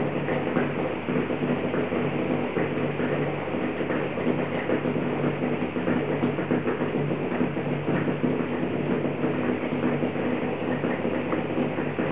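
Steady running hum of a reef aquarium's equipment, its pumps and circulating water, with faint irregular ticks over it.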